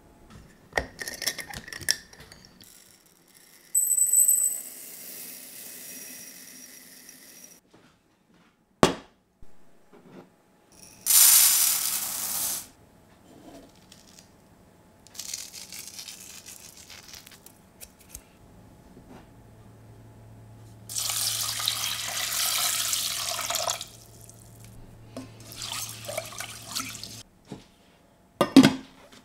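Kitchen preparation sounds: a glass dish clinks and rings for a few seconds, then a sharp knock. Then come short rushing pours, the longest being water poured from a glass jug into a stainless-steel saucepan of brown rice, and a final sharp clink.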